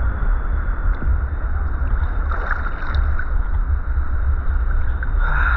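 Seawater sloshing and lapping around a camera carried by a swimmer, heard muffled, with a steady low rumble of water moving over the microphone. There is a slightly louder slosh near the end.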